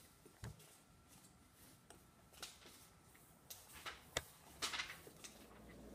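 Faint, scattered clicks and knocks, with a cluster of louder ones about four to five seconds in, over quiet room tone.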